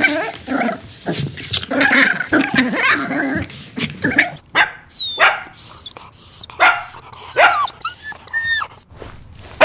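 A dog barking, then giving short high yips and whines that slide up and down in pitch.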